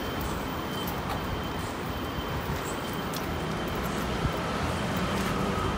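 Steady outdoor traffic noise, with a faint thin high tone and a few small clicks.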